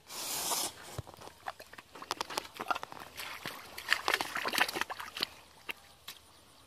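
Muddy water splashing from a bowl for about half a second at the start, then irregular squelching footsteps through shallow mud with grass brushing against the legs.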